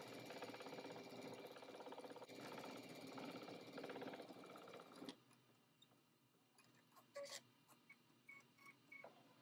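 Computerized embroidery machine stitching a stipple quilting pattern through a hooped quilt sandwich, a rapid, even needle clatter that cuts off suddenly about five seconds in. A few faint clicks and short tones follow.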